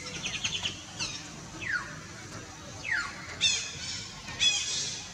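Baby long-tailed macaque screaming in distress: a string of high-pitched cries, some sliding down in pitch, coming louder and closer together after about three seconds.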